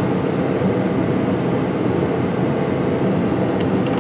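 Steady, loud machine drone with a low, even hum, with a few faint clicks near the middle and near the end.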